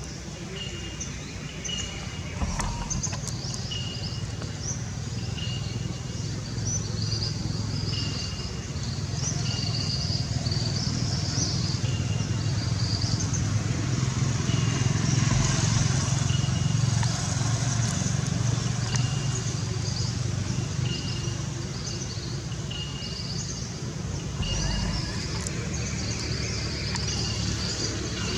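Outdoor ambience: a steady low motor hum that swells through the middle and eases off again, like a vehicle passing, with a short high chirp repeating about every second and a half and scattered bird calls over it.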